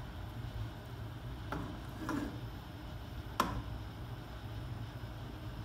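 Metal kitchen tongs clicking against a frying pan and each other while turning chicken pieces in coconut milk: a few light clicks, the sharpest about three and a half seconds in, over a low steady hum.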